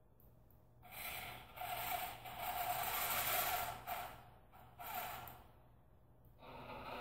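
Torxis 12-volt servo gearmotors of a homemade robotic arm whirring as the arm swings its claw up. There is a steady whine with gear noise that starts about a second in and lasts about three seconds, then a shorter burst of whirring near the five-second mark.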